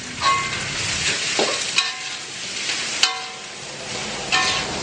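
Fried rice sizzling in a metal wok while a spatula stirs and scrapes it. The spatula strikes the pan four times with a short ringing clank.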